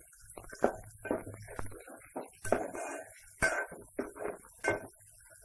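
Steel spoon scraping and knocking against a steel pot as onion and ginger-garlic paste are stirred while frying, in a string of short, irregular strokes, some with a brief metallic ring.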